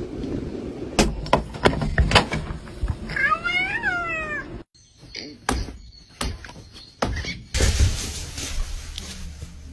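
A house cat meowing once, a short call that rises and then falls, about three seconds in. Several sharp knocks come just before it, and more clicks and knocks follow in the second half.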